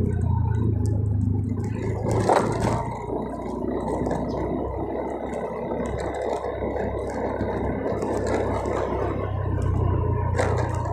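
Motorcycle running at low speed on a paving-block road, its engine humming steadily under the rumble of the tyres, with a single knock about two seconds in.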